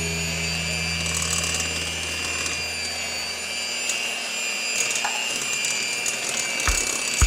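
Electric hand mixer running steadily with a high motor whine, its wire beaters whisking softened butter in a bowl. A low hum dies away about halfway through, and a couple of low knocks come near the end.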